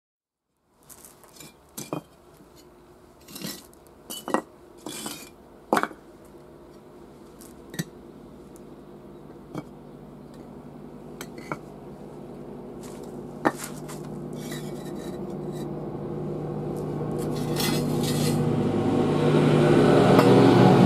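Clay bricks and a steel plate being set down on paving stones: about a dozen scattered knocks and clinks, starting about a second in. Under them a steady hum grows louder through the second half.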